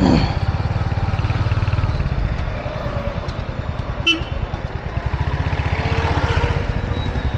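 Motorcycle engine running steadily under way, heard from the rider's seat. A short horn toot sounds about four seconds in.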